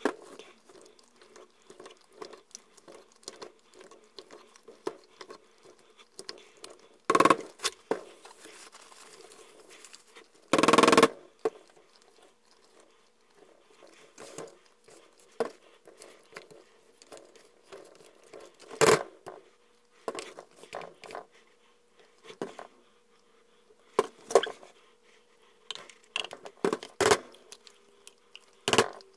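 Silicone spatula stirring and scraping thick soap batter in plastic measuring cups, with scattered light clicks and several louder knocks as cups and utensils are set down or tapped on a stainless steel counter. A faint steady hum runs underneath.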